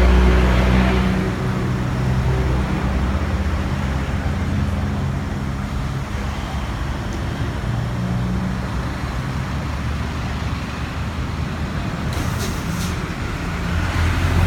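A vehicle engine running steadily with a low hum. A louder rushing noise at the start fades away within the first second or two.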